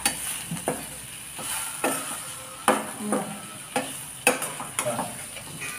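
Baby potatoes frying in a pan, sizzling steadily, while a spoon stirs them with irregular scrapes and knocks against the pan.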